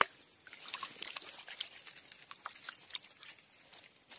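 Steady high-pitched insect drone, like crickets, with a sharp click at the very start and scattered faint ticks and rustles after it.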